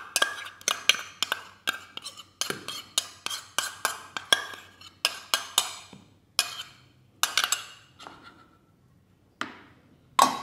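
Metal spoon tapping and scraping inside a small stainless steel bowl, knocking thick oyster sauce out into a food chopper's jar: quick clinks about three or four a second, thinning to a few scattered knocks after about six seconds.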